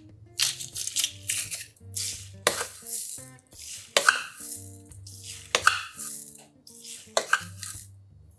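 About ten irregular sharp taps, clicks and scrapes of metal kitchen utensils, a garlic press and a spoon, against a plastic food container as garlic and chili flakes are added for kimchi. Soft background music plays underneath.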